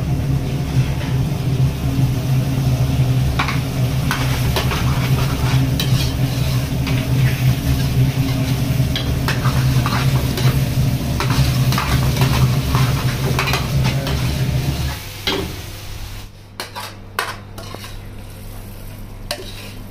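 Paneer masala gravy sizzling in a steel frying pan while a steel ladle stirs and scrapes it, with many clinks of metal on metal over a steady low hum. About fifteen seconds in, the sizzling and hum stop, leaving scattered clinks of the ladle against the pan.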